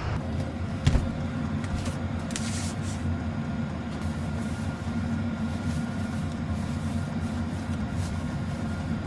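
Steady low engine and road rumble of a car, heard from inside the cabin while driving, with a single knock about a second in.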